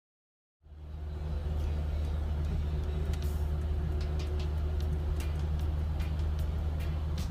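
Renault 4 GTL's engine running steadily: a low, even drone with light clicks and rattles over it. It starts abruptly about half a second in.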